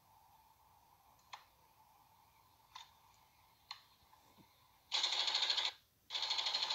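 A black rifle fired in two short fully automatic bursts, each under a second, a few faint clicks coming first.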